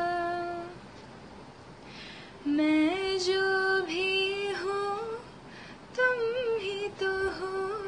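A young woman singing a slow Hindi song unaccompanied. A held note dies away within the first second; after a pause of nearly two seconds she sings two phrases, her pitch sliding and wavering between notes.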